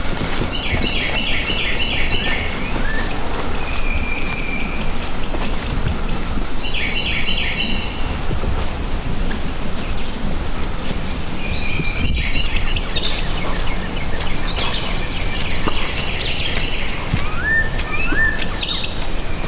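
Songbirds singing in spring woodland: repeated high chirps and trilled phrases from several birds, over a steady low background noise.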